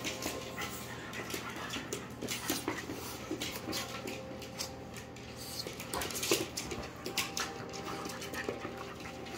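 Small dogs, French bulldogs and a Xoloitzcuintli puppy, scuffling on a hardwood floor: many quick, irregular claw clicks and scrabbles, with dog noises mixed in.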